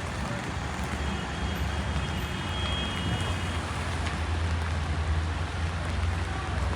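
Steady rain on a city street, with the low rumble of a motor vehicle that grows louder in the second half.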